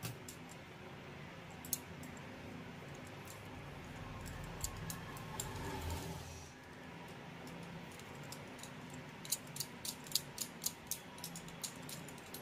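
Quiet handling of soft dough by hand on a floured counter as a piece is rolled into a ball, with a run of light clicks in the last few seconds.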